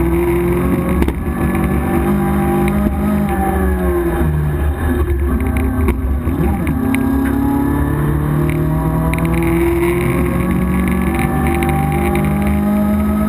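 Opel Manta GT/E rally car's four-cylinder engine heard from inside the cabin while driven hard on a special stage. It revs up with a rising pitch, drops away twice, around four and six seconds in, then climbs again through the gears.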